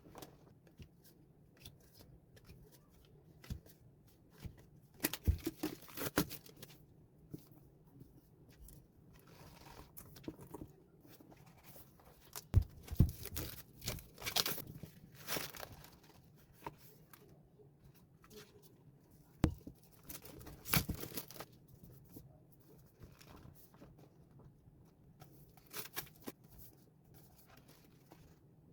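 A package being opened and handled by hand: irregular tearing and crinkling of packaging with scattered knocks and handling noises, in a few busier bursts separated by quieter stretches.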